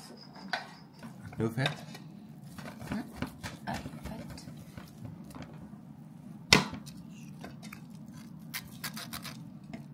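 Metal tongs and a knife clinking and scraping against an aluminium roasting pan while sawing at a large, tough piece of grilled meat. There are scattered small clicks, a sharp clack about six and a half seconds in, and a quick run of clicks near the end.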